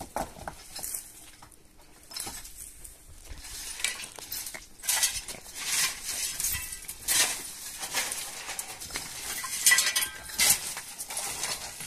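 Metal shovels scraping and scooping stony rubble and gravel, with stones clinking. The strokes are sparse for the first few seconds, then come about once a second.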